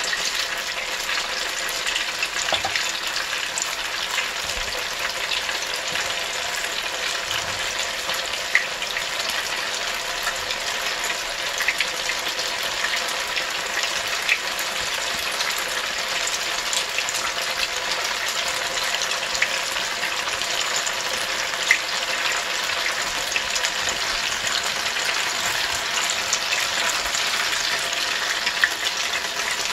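Funnel-cake batter frying in canola oil heated to 350 degrees: a steady sizzle with a few sharp pops scattered through it.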